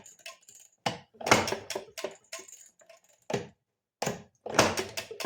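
A 1932 Maytag Model 31 two-stroke engine being turned over to check for spark: short bursts of mechanical clicking and clattering, several times, with no spark and no firing.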